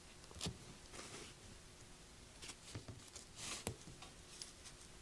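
Faint, scattered clicks and light scrapes of small steel parts being handled: the jaws of a Jacobs Super Chuck being tried in the chuck body.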